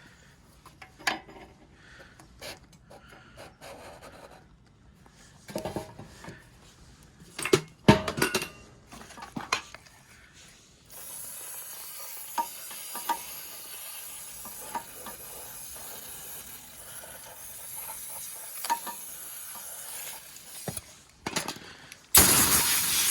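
Metal engine parts of a Mitsubishi GM-291L small engine being handled during piston fitting: scattered clinks, knocks and scraping. About halfway a steady hiss starts with light ticks over it, and a much louder hiss cuts in near the end.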